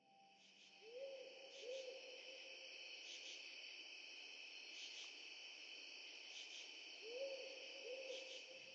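Faint nature soundscape: a steady, high insect trill, with a pair of short, low calls about a second in and another pair near the end.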